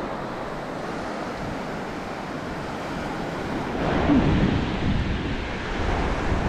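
Small waves of surf breaking and washing up on a sandy beach, with wind buffeting the microphone; both grow louder about four seconds in.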